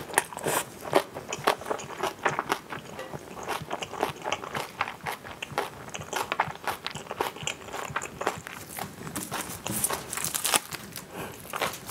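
Close-miked chewing and crunching of a mouthful of cockle bibimbap with raw vegetables: quick, irregular crunches and wet mouth sounds.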